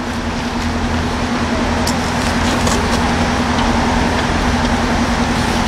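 Diesel multiple unit's engine running with a steady low hum, growing a little louder about a second in.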